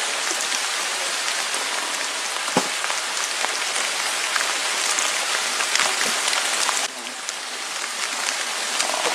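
Steady rain-like hiss with scattered light pattering; the level drops suddenly about seven seconds in, then builds back up.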